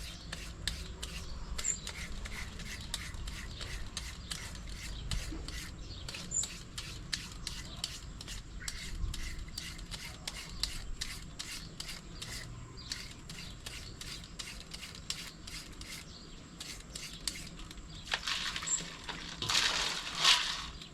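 Green papaya being shredded by hand: repeated scraping strokes, about three a second. Near the end a louder rushing, rustling noise lasts about two seconds.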